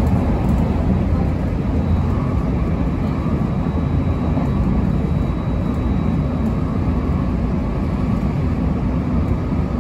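Inside a JR Kobe Line Special Rapid electric train running at speed: a steady low rumble of running noise with a faint, steady high tone above it.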